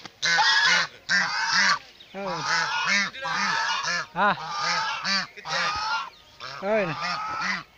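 Domestic geese honking over and over in harsh, rasping calls, a defensive display by adults guarding their goslings.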